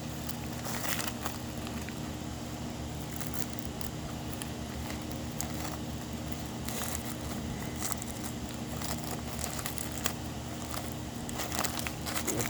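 A Fisherman's Friend lozenge bag being handled, with scattered crinkles and crackles of its lining, over a steady low hum.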